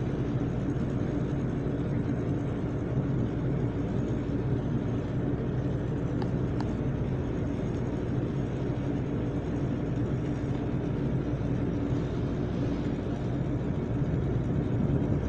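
Steady low drone of a ship's engines and machinery under way, with a few constant low hums under a wash of wind and sea noise.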